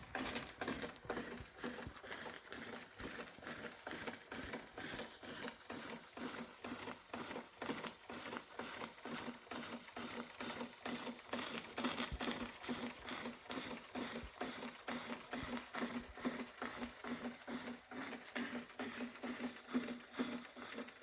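Märklin 4112/11 toy steam engine running under steam, its cylinder chuffing in a quick, even rhythm.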